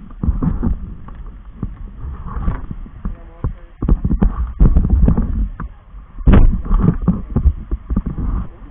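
Irregular low thumps and rumble from a handheld camera's microphone being jostled while it is carried on foot.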